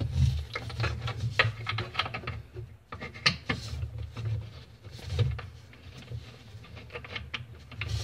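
Small irregular clicks, taps and rustles of a gloved hand threading the hot-water supply hose's nut onto the faucet inlet by hand, over a low steady rumble.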